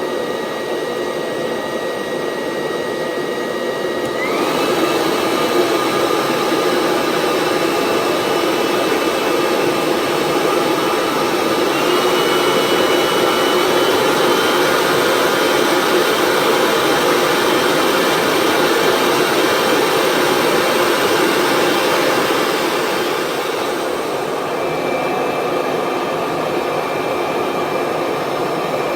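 ghd Helios hair dryer running, its fan whine stepping up in pitch and loudness about four seconds in and again a few seconds later as it is switched to higher settings, then dropping back a little near the end.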